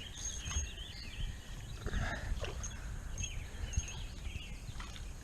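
Birds chirping in short wavering phrases over a steady low outdoor rumble, with a few light clicks.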